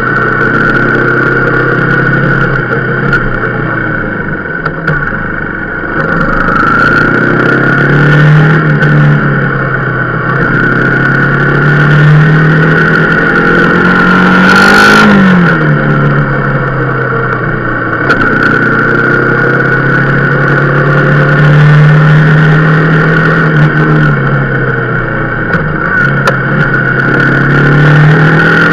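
Rieju Marathon Pro supermoto's engine running under way, its pitch rising and falling with the throttle several times, with a quick drop about fifteen seconds in.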